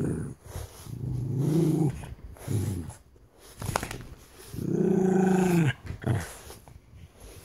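A small dog growling in several drawn-out growls, the longest and loudest about five seconds in, as it mouths a person's hand.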